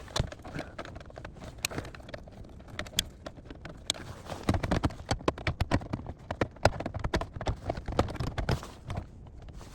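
Irregular clicking and knocking of plastic dash parts and wiring connectors being handled and plugged back into the heater control unit, busiest from about four and a half seconds in.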